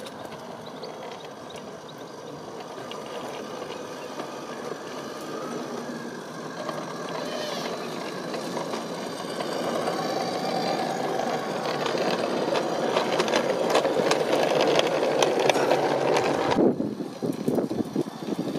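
Garden-railway model train running on its track, a steady rumble of wheels on rails with many clicks that grows louder as the train approaches and passes close by. The sound cuts off abruptly near the end.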